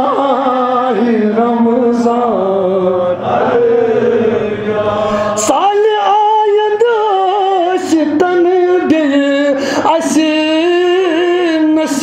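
A man chanting a devotional poem in a long melodic line through a microphone, holding and bending drawn-out notes, with a brief break about halfway.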